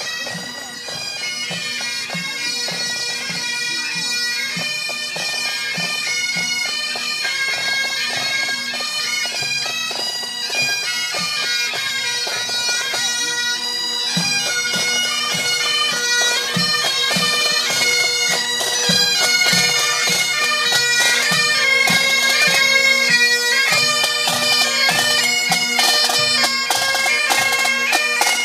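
Bagpipes playing a tune over a steady drone, with a drum beating regularly beneath, growing gradually louder.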